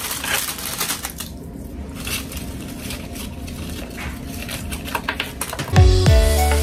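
Plastic bag crinkling and small pine cones clicking and rattling as they are dropped into a glass vase. Music comes in about six seconds in, louder than the handling.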